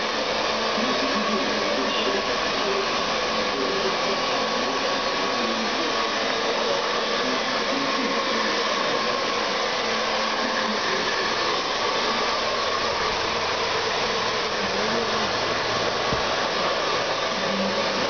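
Handheld hair dryer running steadily, blowing air to dry hair, an even rush of air with a faint steady whine.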